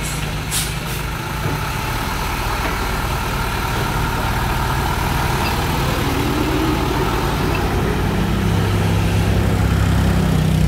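TMT dump truck's diesel engine running steadily, getting louder in the last few seconds, with a brief hiss about half a second in.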